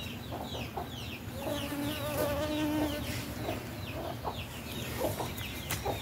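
A bee buzzing close by at an orange blossom. A steady hum holds for about a second and a half near the middle. Short, high, falling chirps repeat throughout.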